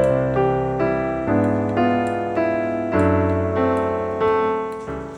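Background piano music: struck notes and chords at a gentle, even pace, softening near the end.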